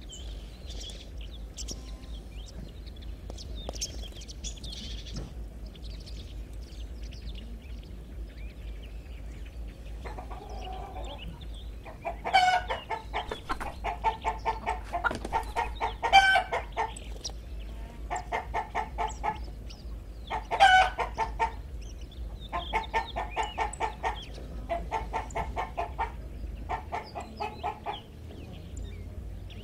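Chickens clucking. From about twelve seconds in come long runs of rapid clucks with a few louder squawking calls among them. Before that there are only faint high chirps.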